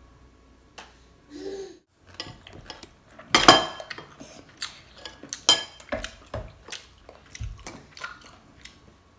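Cutlery clinking against plates and bowls in an irregular run of sharp clicks and knocks, the loudest cluster about three and a half seconds in.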